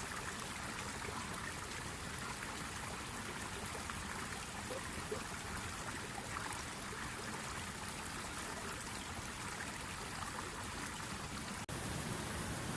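River water flowing and trickling steadily. Near the end the sound cuts out for an instant and comes back as a slightly louder, fuller rushing.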